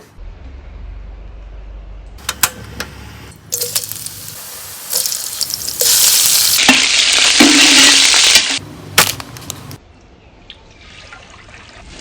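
Cooking in a pan: a few clinks of utensils, then food sizzling and being stirred, loudest for a couple of seconds in the middle before it cuts off suddenly. A softer sizzle starts again near the end.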